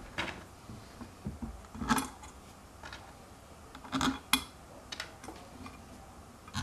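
Small screws clicking and clinking against a hoverboard's metal frame as they are handled and set in to fasten a sensor pad. A few scattered sharp clicks, the loudest about two seconds and four seconds in.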